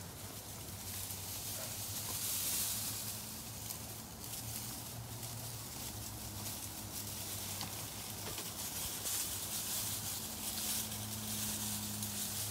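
Straw bedding rustling and crackling as German shorthaired pointer puppies scamper and root about in it, over a low steady hum.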